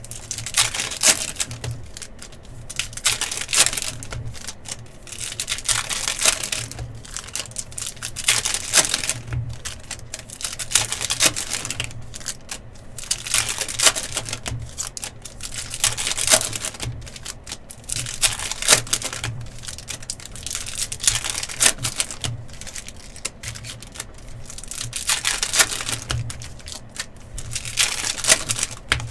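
Football trading card packs being opened and the cards handled: rapid clicking of cards and crinkling, tearing wrappers, in bursts every two to three seconds.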